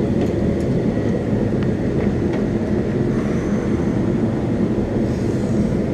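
Steady low mechanical drone of a running machine, with a few faint clicks over it.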